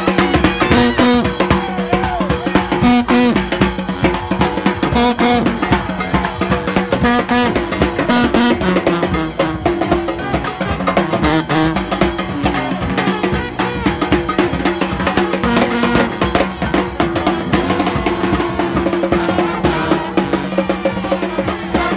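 New Orleans second-line brass band playing: horns holding and changing notes over a busy drum beat.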